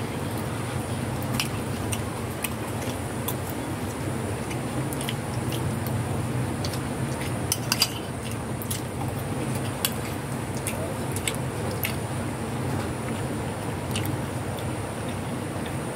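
Cats chewing a cassava snack from a plastic tub, with scattered short sharp clicks over steady low background noise.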